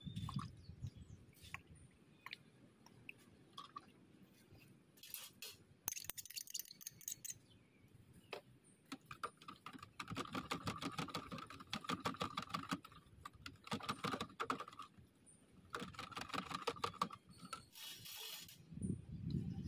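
Light clicking and clinking of small hard items such as utensils and glassware being handled while drinks are made. Several spells of rapid clinking, each a second or more long, come about halfway through and again later, with short hissing bursts in between.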